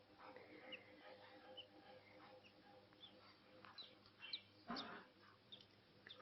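Budgerigars chirping faintly: scattered short, high, falling chirps. There is a brief rustling noise a little past the middle.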